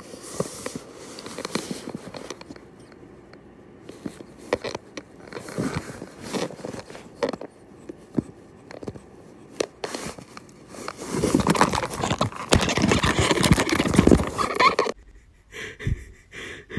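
A cat moving inside a paper bag: rustling and scratching of the paper, with scattered sharp crinkles and a denser, louder stretch of rustling for a few seconds near the end.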